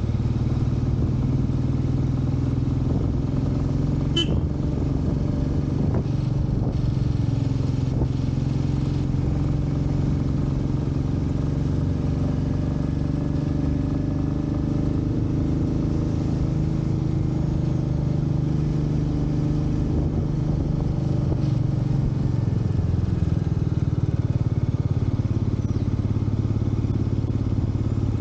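Motorcycle engine running steadily under way, its pitch easing down and back up about three-quarters of the way through.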